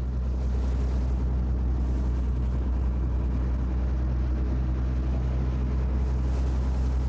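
Charter boat's engine running steadily under way, a low even hum with a wash of noise over it.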